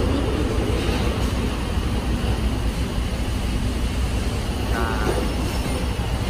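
Steady low rumble of street traffic and city noise.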